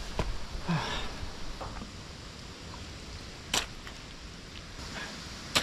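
Spade digging by hand in wet clay loam: faint scraping, then two sharp clicks about two seconds apart in the second half.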